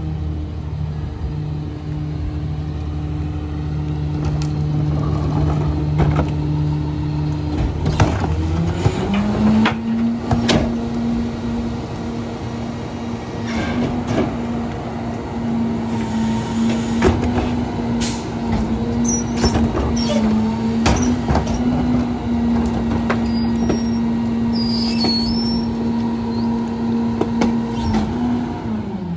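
Pac-Tech rear-loader garbage truck idling, then its engine speeds up to a steady higher pitch about eight seconds in as the hydraulic packer runs its compaction cycle, dropping back to idle near the end. Scattered clanks and bangs come from a trash cart being tipped against the hopper and refuse falling in.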